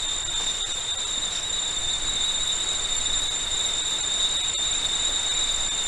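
Cicadas droning: one steady, high-pitched tone with a fainter tone above it, over an even hiss.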